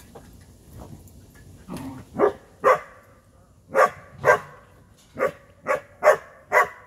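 A dog barking: after a quiet first two seconds, eight sharp barks, mostly in pairs about half a second apart.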